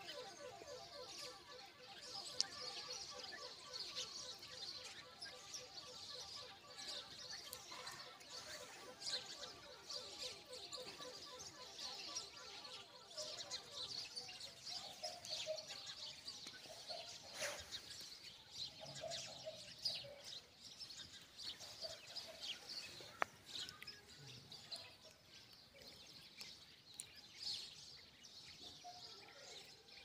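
Faint chirping of birds, many short high chirps over a light outdoor background noise. A faint fluttering hum runs under the first half, and a couple of brief clicks come later.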